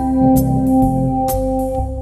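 Wersi Atlantis electronic organ played with a swinging drawbar registration: held chords over bass notes from the pedals, with two short high ticks about a second apart.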